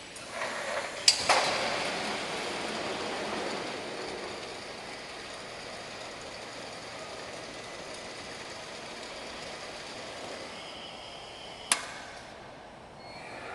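Refrigerator heat-shrink packaging machine running: a steady mechanical whir with sharp clacks about a second in and one loud, sharp clack near the end, after which the machine goes quieter.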